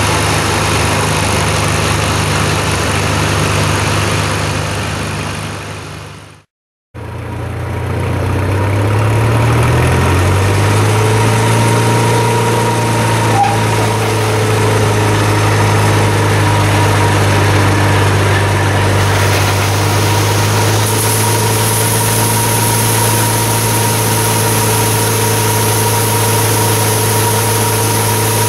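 Gleaner combine engine running steadily. After a brief dropout about six seconds in, it comes back and rises in pitch as it speeds up, then holds steady. Near the end a hiss of oats pouring from the unloading auger into the steel grain tank joins in.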